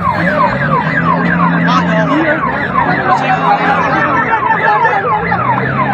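Ambulance siren sounding in rapid repeated falling sweeps, about three a second, with people's voices underneath.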